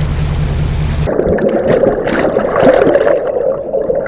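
A steady low boat-engine hum with wind noise for about a second, then a sudden switch to muffled gurgling and rushing of water recorded underwater, dull with the highs cut off, as the sinker and bait are towed through the sea.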